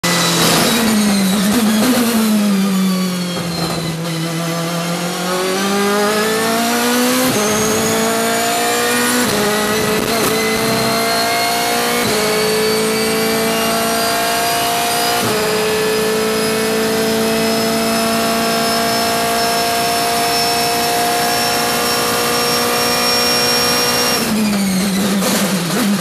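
Onboard sound of a BMW M3 DTM race car's V8 engine at full race pace: the engine note falls in the first few seconds, then climbs hard through four or five upshifts, each a quick drop in pitch, and holds a steady high note flat out. Near the end it drops quickly through a run of downshifts under braking.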